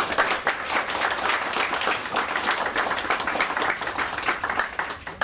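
Audience applauding: many people clapping at once, a dense, steady patter of hand claps.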